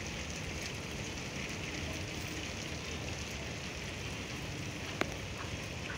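Steady rain falling on a tiled rooftop terrace, an even hiss without let-up, with a single sharp tap about five seconds in.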